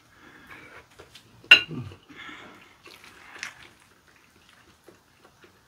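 Eating noises of noodles being slurped and chewed, with light clicks of chopsticks against the pan. A sharp click about a second and a half in is the loudest sound.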